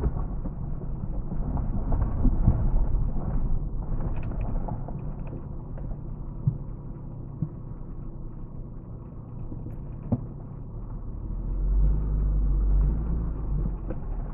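Car driving along a gravel road, heard inside the cabin: a steady low rumble of tyres and engine, with a few short sharp knocks around the middle and a heavier low rumble swelling up near the end.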